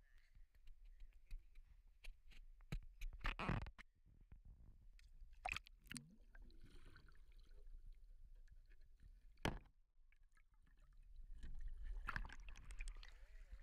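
Water sloshing and gurgling around an action camera dipping underwater as a whitewater kayak capsizes and is rolled, with many short knocks and several sharper splashes.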